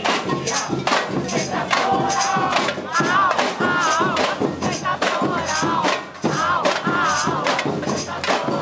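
A bateria, a Brazilian samba percussion band of drums and shakers, playing a steady beat while a crowd sings and shouts along.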